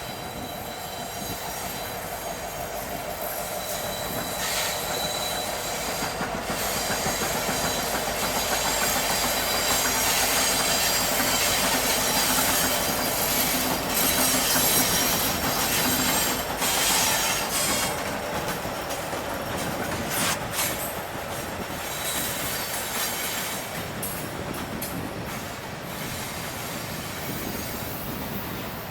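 Freight train cars rolling through a curve: steel wheels squealing against the rails over a steady clickety-clack of wheels on rail joints. The sound swells toward the middle and eases off near the end.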